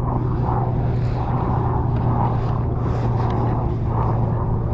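A steady low engine drone, unchanging in pitch throughout.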